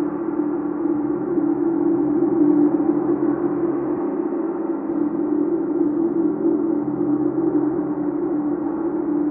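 Chau gong sounding continuously: a steady, sustained wash of many overlapping tones with a strong deep hum, swelling slightly with no single strike standing out.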